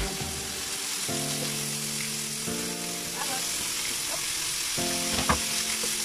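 Shrimp, garlic and onion sizzling as they fry in hot coconut oil in a pan, stirred with a spatula, with one sharp knock a little over five seconds in. Background music with sustained chords plays along.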